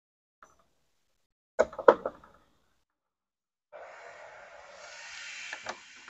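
A few sharp knocks of hard plastic parts and a screwdriver being handled, then a couple of seconds of rasping, scraping noise that slowly grows louder, as a screwdriver drives a screw into the washing machine's plastic control panel.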